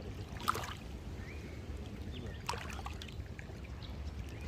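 Water trickling and sloshing over a steady low rumble, with two sharp clicks about two seconds apart.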